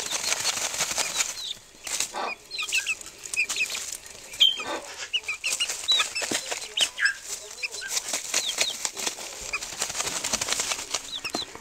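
Chickens dust-bathing in loose feed: rustling, scratching and feather flapping as they work and toss the feed, with a few louder flutters and many short high peeps.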